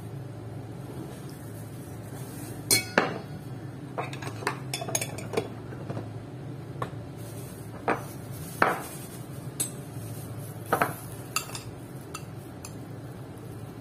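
A metal spoon clinking against a ceramic bowl and glass jars in sharp, irregular taps, over a low steady hum.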